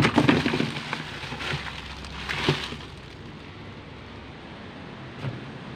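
Hands rummaging through a cardboard box and its plastic wrapping, crinkling and rustling with a few sharp knocks. The handling is busiest for the first three seconds, then dies down to a faint steady background noise with one small knock near the end.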